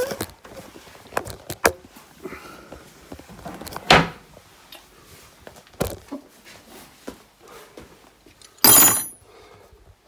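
Tools and work gear being handled and set down: scattered clicks and knocks, a sharp knock about four seconds in, another about two seconds later, and a short loud rattling clatter near the end.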